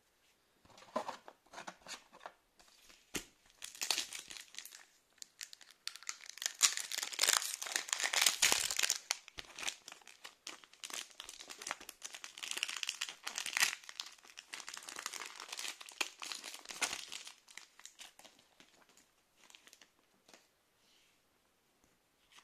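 Foil wrapper of a counterfeit Pokémon card booster pack crinkling and tearing as it is ripped open and handled, with dense crackling that is loudest in the middle and dies away near the end.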